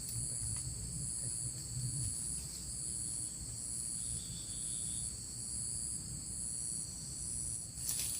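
Insects, crickets or similar, chirring steadily in several high-pitched bands, the highest one pulsing roughly every two-thirds of a second. A low rumble of handling or movement sits under it, strongest in the first two seconds.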